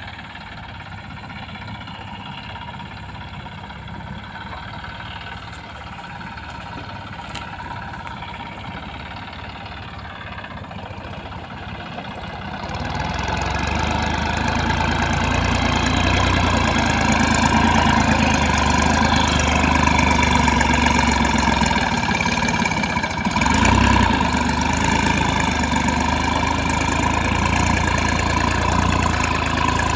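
Massey Ferguson 9500 Smart tractor's diesel engine running steadily under load while pulling a mouldboard plough through soil. It grows louder about twelve seconds in as the tractor is heard from closer by.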